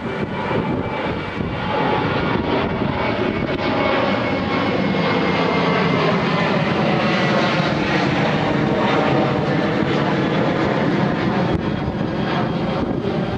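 Landing airliner's engines: a steady rushing noise with a faint whine, growing louder over the first few seconds and then holding.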